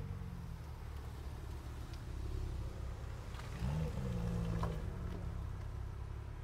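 Porsche Cayman GT4's flat-six engine running at low speed, with a short rev rising in pitch about three and a half seconds in, held for about a second and then easing off.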